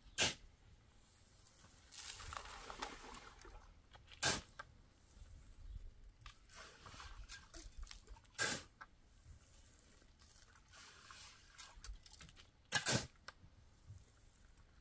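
Sharp knocks about every four seconds, four in all, the last a quick double knock. Softer scraping comes in between.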